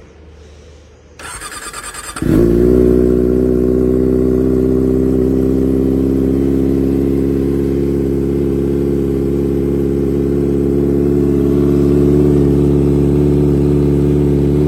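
Kawasaki ZX-25R's 250 cc inline-four being started from cold: the starter cranks for about a second, then the engine catches and settles into a steady, loud idle through a ProLiner TR2 full-system 4-2-1 exhaust.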